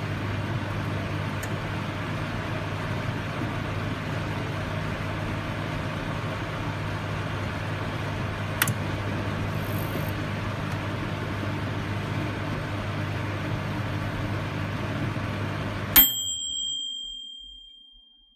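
Microwave oven running with its steady electrical hum. About 16 seconds in it cuts off with a click and a single ding that rings and fades away, the signal that the heating cycle has finished.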